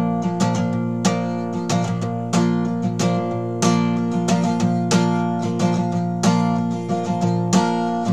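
Acoustic guitar strumming chords in a steady rhythm: the instrumental intro of a song.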